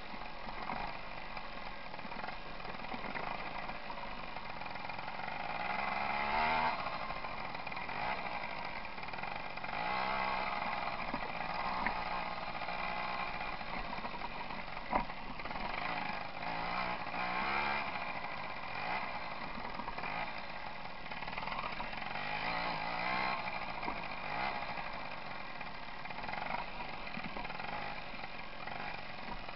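Tomos moped's small two-stroke engine running under way, its pitch rising and falling repeatedly as the throttle opens and eases off. A couple of sharp knocks stand out, the clearest about halfway through.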